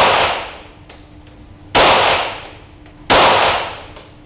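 Feinwerkbau AW93 .22LR competition pistol firing CCI Standard rounds, two shots about a second and a half apart, each followed by a long echo fading out over about a second.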